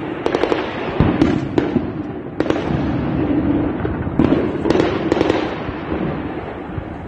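Distant gunfire: a dozen or so sharp shots at irregular spacing, some in quick runs, each cracking and echoing off the surrounding buildings.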